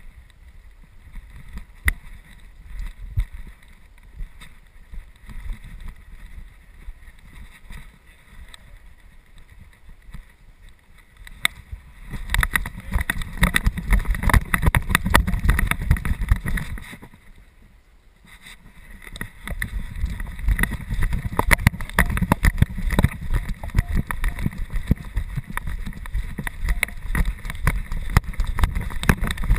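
Handling noise from a GoPro camera strapped to a golden retriever's collar as the dog moves through snow: a low rumble of rubbing and knocking from the mount, with many rapid crackling knocks. It grows much louder about twelve seconds in, drops briefly around eighteen seconds, then turns loud again.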